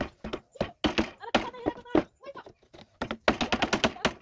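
Hammer striking a chisel into a wooden window frame to chop out a slot: separate sharp taps, then a quick run of light taps about three seconds in.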